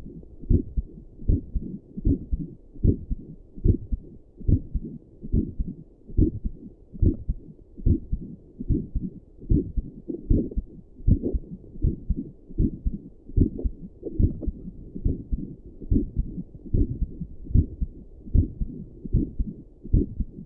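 A resting human heartbeat heard through a stethoscope and a doppler mixed together: a steady, regular rhythm of low double thumps (lub-dub), a little more than one beat a second.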